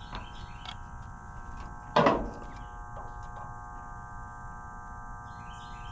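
Steady electrical hum made of several fixed tones, with one sharp knock about two seconds in and a few faint ticks.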